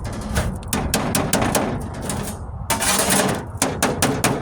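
A quick run of sharp taps and clicks, several a second, with a short rush of noise about two-thirds of the way through.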